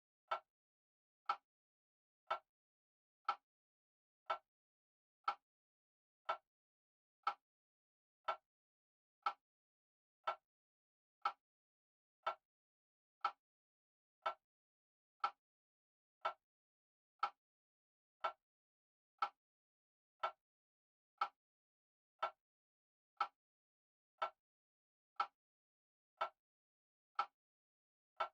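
Grandfather clock ticking steadily, one short, sharp tick each second, with silence between ticks.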